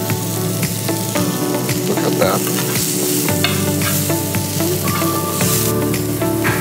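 Mushrooms and soya chunks sizzling in a hot non-stick frying pan while a wooden spatula stirs and scrapes them, with frequent small clicks of the spatula against the pan.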